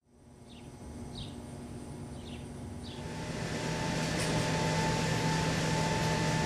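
Faint outdoor ambience with four short high chirps. About three seconds in, the steady hum of a basement mechanical room takes over: ventilation and electrical equipment, with two held tones under a rushing haze. A click about a second later, as a steel double door is pushed open.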